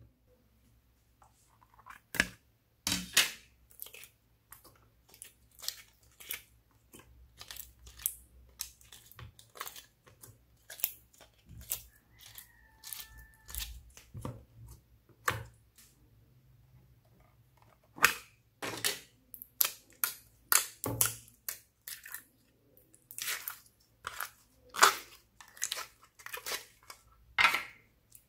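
Slime being squished, folded and stretched by hand, giving an irregular string of sticky wet clicks and pops, with a short lull a little past halfway.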